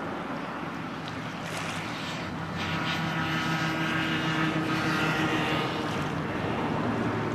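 Racing powerboat engines droning across the water, a steady engine note that gets louder about two and a half seconds in.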